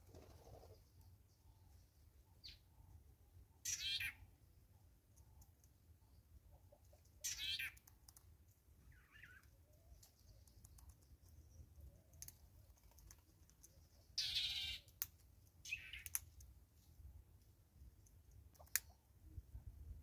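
Four short bursts of bird calls, with scattered sharp clicks as a southern yellow-billed hornbill pecks its bill into a plastic bottle feeder of seed.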